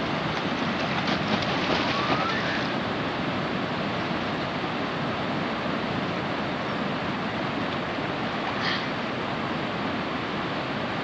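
Ocean surf washing steadily, swelling slightly about a second or two in.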